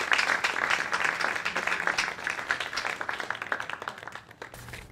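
Audience applauding, a dense patter of many hands clapping that thins out and dies away toward the end.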